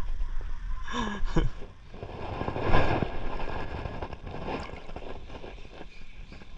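Wind on the microphone and lapping water around an angler casting an ultralight spinning rod and reel, with a louder rush of noise about three seconds in and faint ticking from the reel near the end as the retrieve begins.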